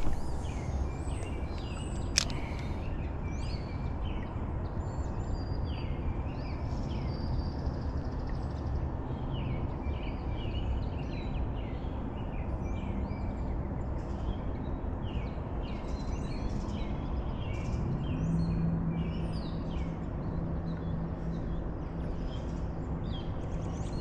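Songbirds chirping and singing over a steady low rush of outdoor noise. A single sharp click comes about two seconds in, and a low steady hum comes in about three-quarters of the way through.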